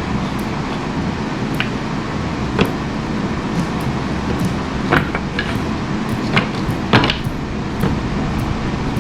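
Steady rushing background noise with about six light knocks and clacks of hard pieces being handled, the loudest about seven seconds in.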